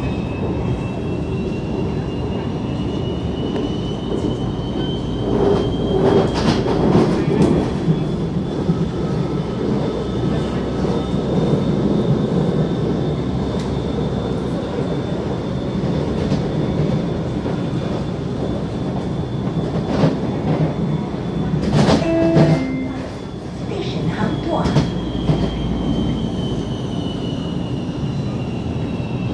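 Onboard a CSR Zhuzhou "AMY" light-rail train running: a steady rumble of wheels on rail, with a thin whine that climbs in pitch at first, holds level, then falls near the end. Bursts of wheel clatter and knocks come over rail joints, a few seconds in and again later.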